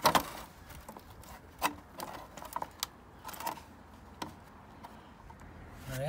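Workshop handling noises: a loud knock at the start, then scattered light clicks and taps of hard objects being handled.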